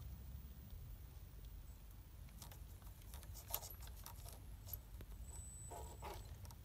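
Faint scattered clicks and scrapes from a small RC rock crawler working its tyres and chassis against rock on a steep climb, over a steady low rumble. The clicks bunch up about halfway through.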